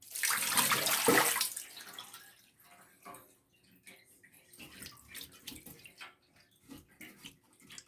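Water being emptied out of a toilet tank. It rushes and splashes loudly for the first second and a half, then settles into smaller splashes and drips.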